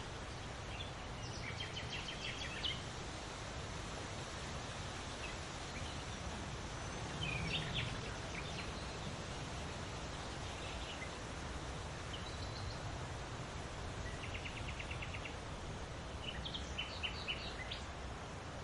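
Forest birds calling in short scattered chirps and phrases, including a quick even trill of repeated notes, over the steady hiss of a breeze.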